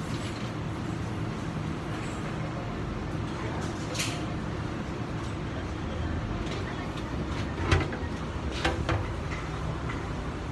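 Water refill vending machine running with a steady low hum while it fills a large plastic water bottle, with a few sharp clicks and knocks from the coin slot and the bottle compartment, the loudest past the middle.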